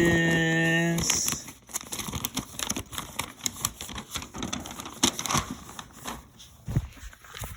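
Plastic and cardboard toy packaging being handled, crinkling and rustling with many small clicks as it is opened by hand. It begins with a steady held voice-like tone that stops about a second in.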